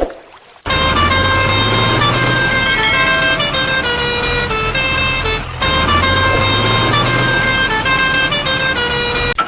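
Electronic tune: a melody of short stepping tones over a repeating low beat, starting abruptly just after the start and cutting off near the end.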